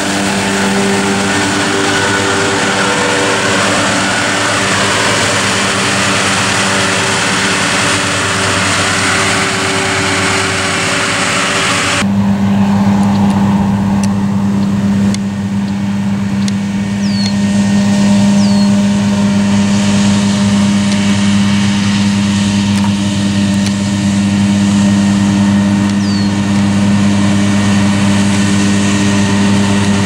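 Self-propelled hay mower with three Case IH RD163 disc mowers running steadily under its 500 hp John Deere diesel engine while cutting hay. About twelve seconds in the sound switches abruptly to a steadier, deeper drone.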